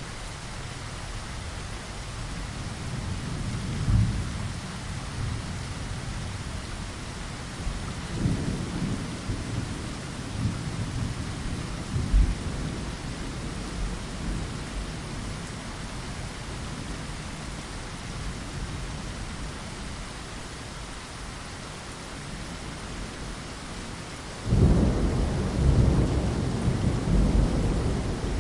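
Steady rain against a window, with low thunder rumbling: a short rumble about four seconds in, longer rolling between about eight and thirteen seconds, and a sudden loud peal that rolls on for a few seconds near the end.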